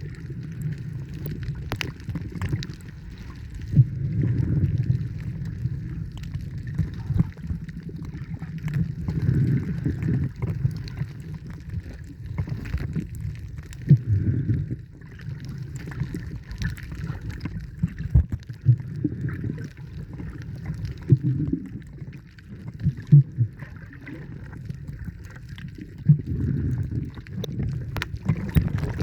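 Seawater sloshing and gurgling around the camera, in uneven surges with scattered clicks.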